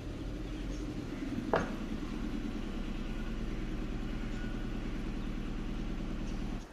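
Steady low mechanical hum of an engine or motor running, with a single sharp click about a second and a half in; the hum cuts off abruptly just before the end.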